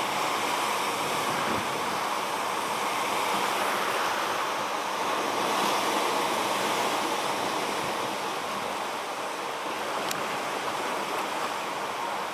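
Small waves washing onto a sandy beach: a steady rush of surf that swells and eases gently.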